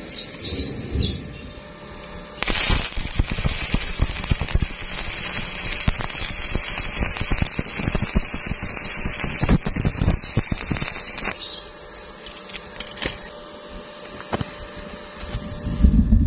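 Electric arc welding on thin steel square tubing: the arc starts about two and a half seconds in, crackles and sputters densely for about nine seconds, then cuts off sharply. Only a few scattered ticks follow.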